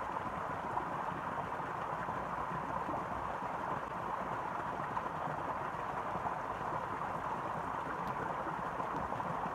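Small stream's running water, a steady even rush.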